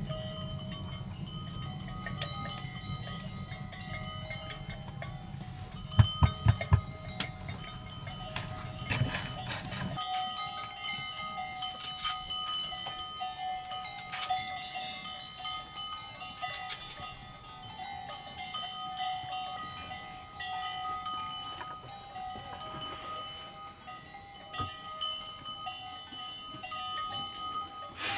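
Livestock bells ringing continuously, tinkling and clanking. A few sharp knocks about a third of the way in, and light clicks later.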